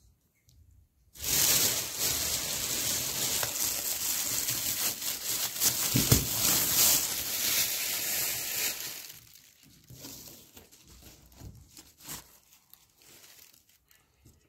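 Close, dense crinkling and rustling of something being handled. It starts about a second in and stays loud for about eight seconds, then thins to scattered faint crackles.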